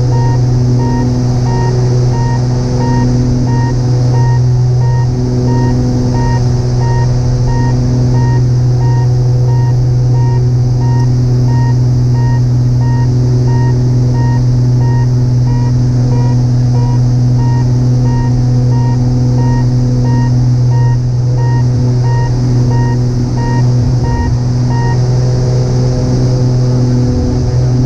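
Steady drone of a twin-engine light aircraft in flight, heard through the cockpit intercom audio feed, with a strong low hum. A faint pulsing tone repeats about one and a half times a second and stops near the end.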